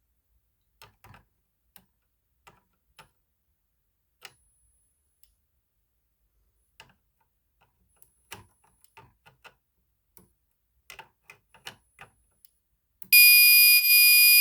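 Faint clicks and knocks of a pull station and wiring being handled, then about 13 seconds in a fire alarm sets off: a loud, steady, high-pitched alarm tone that starts suddenly, triggered from the pull station.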